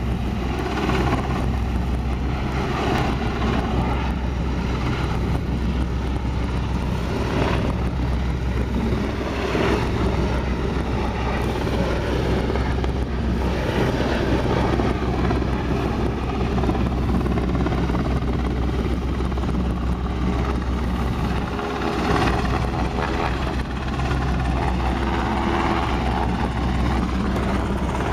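Coast Guard helicopter's rotor beating steadily overhead, mixed with a continuous rush of wind and water from a fast-moving boat.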